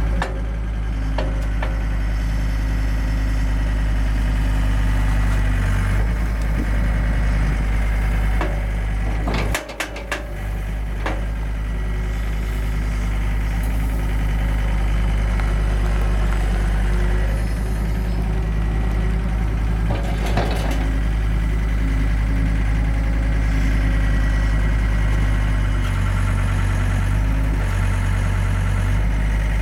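Skid steer loader's diesel engine running steadily under hydraulic work. A few sharp knocks or clatters come about a third of the way in and again about two-thirds in.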